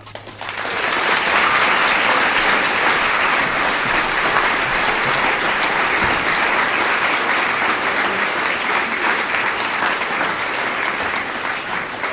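Audience applauding in a hall, rising within the first second, holding steady, and fading near the end.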